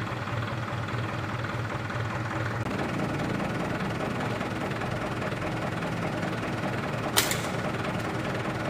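A single sharp shot from an Artemis 1000 air rifle about seven seconds in, fired at a pigeon perched on a roof edge. Under it runs a steady engine drone.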